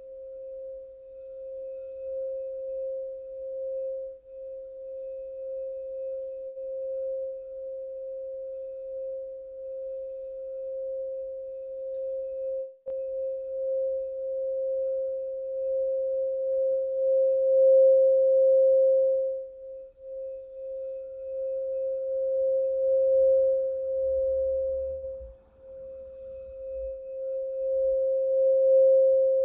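Singing bowl sounding one steady, held tone that swells and fades, with a few brief dips.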